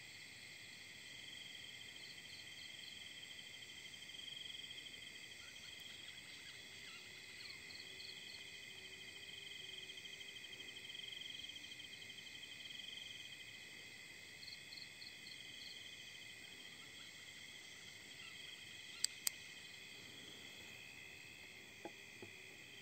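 Night insects, crickets, chirring steadily in several high-pitched tones, with short pulsed trills every few seconds. About 19 seconds in come two sharp clicks in quick succession, and a couple of softer clicks near the end.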